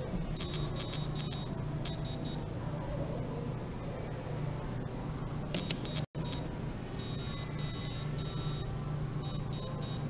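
Grove Beginner Kit piezo buzzer beeping SOS in Morse code, in high-pitched groups of three short and three long beeps. The first sequence finishes with three long and three short beeps. After a pause, a full SOS plays at a slower speed, with noticeably longer dashes.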